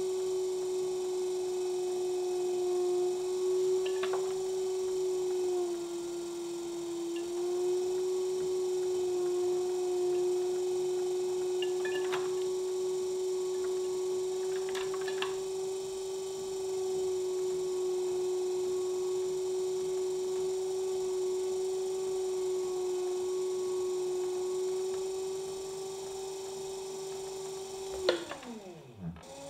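Electric pottery wheel motor whining with one steady high hum while the wheel head spins, with a few faint clicks from the trimming tool. Near the end the pitch slides quickly down as the wheel is stopped.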